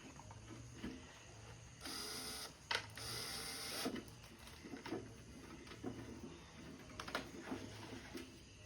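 Hand work with tools: scattered clicks and knocks, with two short hissing bursts about two and three seconds in and a sharp click between them.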